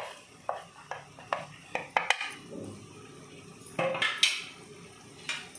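Metal spoon clinking and tapping against a plate and the rim of a kadai as spice powder is scooped and sprinkled in: several light clicks in the first two seconds, two louder clinks about four seconds in, and one more near the end.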